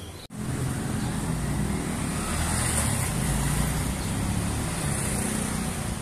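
Steady low rumble of a motor vehicle or road traffic running close by. It starts abruptly after a brief gap in the sound about a quarter of a second in.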